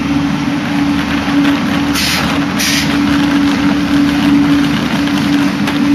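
Trains standing at a station platform, idling with a steady low hum, and two short hisses about two seconds in.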